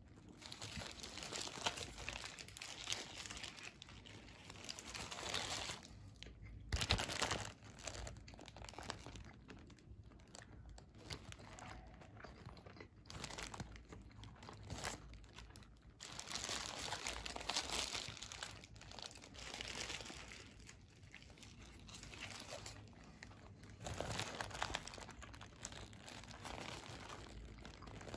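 Paper burger wrapper crinkling and rustling in the hands in repeated bouts, with crunching bites into a fried chicken burger.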